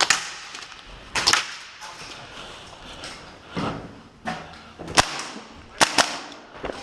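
Airsoft guns firing scattered single shots: sharp snaps spaced irregularly over several seconds, with a quick pair near the end.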